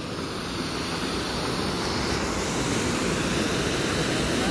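Rushing water of a mountain stream, a steady hiss that grows slowly louder.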